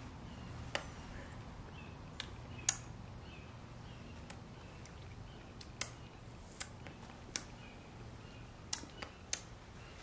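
About ten sharp, irregular clicks and taps from a person signing, the loudest nearly three seconds in, over a faint low hum.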